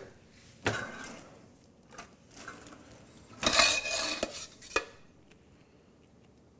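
Utensils knocking and clinking against dishes and a pot as soup is served into a small bowl: a single knock, then a louder run of clinks and scraping that ends in a sharp click.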